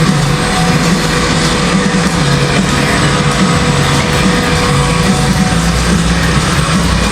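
Background rock music with guitar and a bass line that steps between notes.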